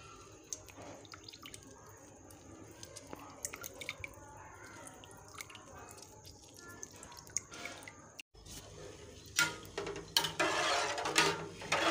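Rice in water being stirred with a wooden spoon in a steel cooking pot. First there are light scattered clicks and drips. Then, from about nine seconds in, come louder bursts of splashing and sloshing as the rice is mixed.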